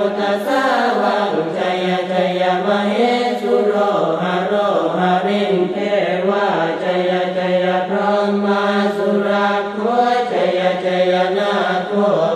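Buddhist chanting in Pali, a continuous recitation held on a nearly unchanging low pitch, syllable after syllable without pause.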